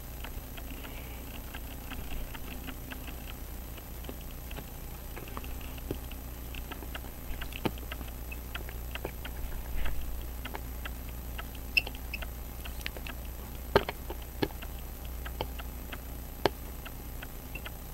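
Faint, irregular small clicks and scratches of a jeweller's screwdriver turning a case screw in a Hamilton 916 pocket watch case, with a few sharper clicks in the second half over a steady low hum.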